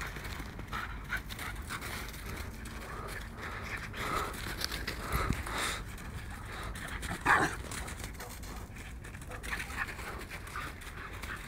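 A red-nose American Pit Bull Terrier puppy and a black dog panting as they play, with a few short yips; the loudest comes about seven seconds in.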